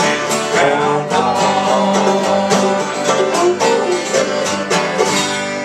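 Acoustic bluegrass band playing banjo and guitar over a steady strummed rhythm and a held low note, closing on a final chord near the end.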